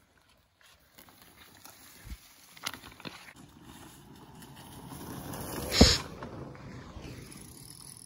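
A fat-tyre electric mountain bike rolling through tall grass as it passes close by, the swish of tyres and brushed grass swelling and then fading. There is a sharp knock at the loudest moment, about six seconds in, and a few lighter knocks earlier.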